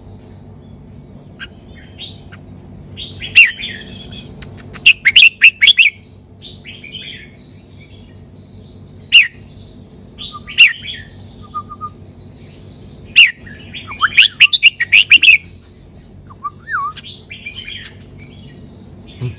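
Red-whiskered bulbul singing short, loud bursts of whistled phrases separated by pauses of a few seconds, in the doubled-phrase song style that Thai keepers call 'sai boen'. The densest runs of notes come about four seconds in and again about thirteen seconds in.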